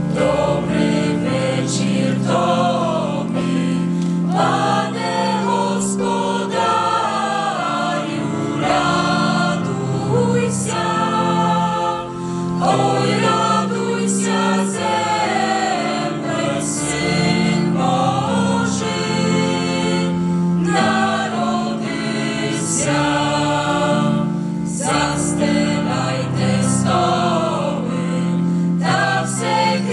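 A small young choir, mostly female voices, singing a Christmas carol in parts over sustained keyboard chords.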